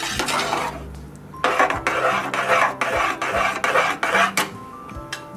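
A metal spoon stirring thick rasam rice in an aluminium pressure cooker, scraping against the pot's bottom and sides. There is a lull from about half a second in, then the scraping resumes and eases off near the end.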